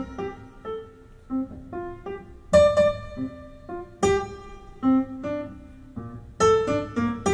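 Slow instrumental passage of a jazz ballad recording, with no singing: piano notes and chords struck one by one and left to ring out.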